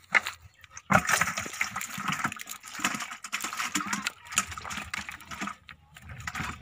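Wet fishing net being pulled and picked over by hand on mud as fish are freed from it: irregular rustling and squelching that starts sharply about a second in, with short pauses.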